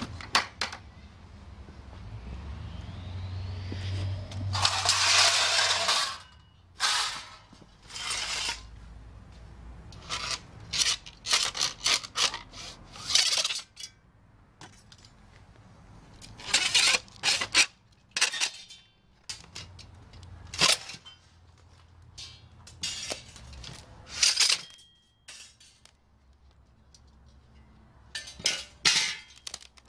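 Irregular metal clinks, clanks and scrapes of hand tools and battery-pack hardware as a stack of Nissan Leaf lithium-ion battery modules is taken apart, with a longer rattle about four to six seconds in.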